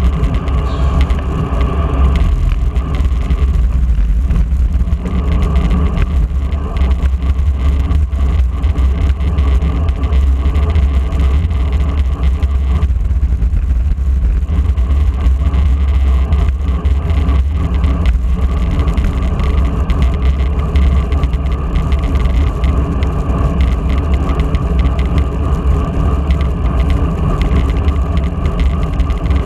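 Wind rushing over a bike-mounted camera's microphone as a road bike rides at speed, a steady low rumble, with the hum of bicycle tyres on asphalt.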